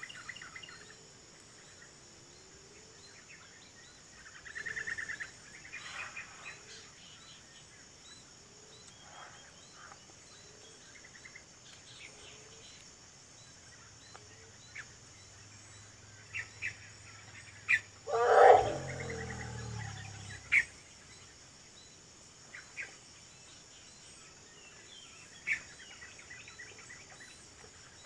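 Faint birdsong and a few sharp clicks in the forest. About 18 seconds in, a Sumatran elephant gives one loud call of about two seconds that drops in pitch into a low rumble.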